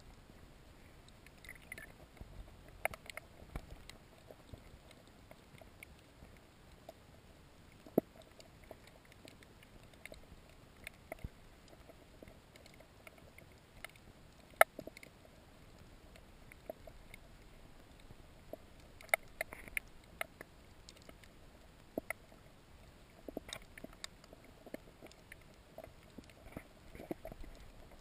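Faint underwater ambience picked up by a camera in shallow water, with scattered sharp clicks and knocks every second or few and a couple of louder ones.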